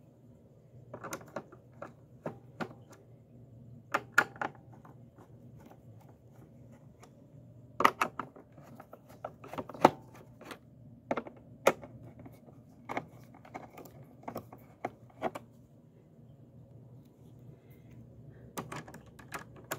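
Screwdriver undoing the screws of a Hoover Elite Rewind Plus vacuum's plastic bottom cover: irregular clicks, taps and knocks of the tool and screws against the plastic housing.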